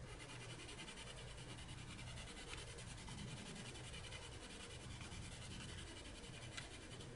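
Faint scratching of a Black Widow Monarch colored pencil shading a swatch on paper in quick back-and-forth strokes.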